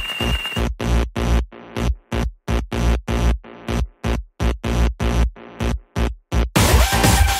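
Electronic dance music with a steady beat. About a second in, it breaks into a stuttering run of short chopped hits with silent gaps between them, and the full track comes back near the end.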